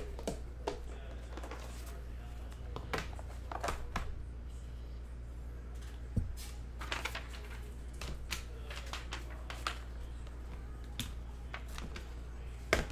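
Irregular light clicks and taps of typing on a computer keyboard and clicking a mouse, over a steady low hum.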